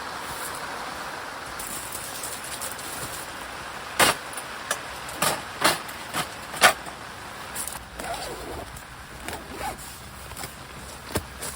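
Steady rain falling, with a run of sharp knocks and clacks of gear being handled starting about four seconds in, then a few fainter ones.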